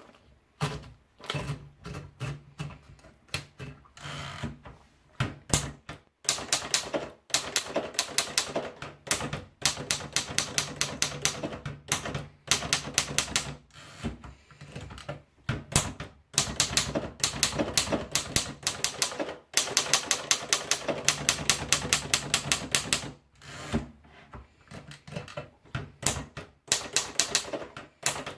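Remington Cicero typewriter being typed on: quick runs of sharp key strikes lasting a few seconds each, broken by short pauses, with a low hum underneath while the typing runs.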